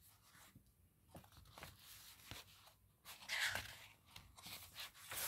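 Pencil scratching across a paper workbook page in short tracing strokes, faint, with a louder scratchy stroke about three seconds in.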